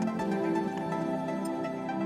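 Background music: sustained electronic, new-age-style tones, with a few faint clicks.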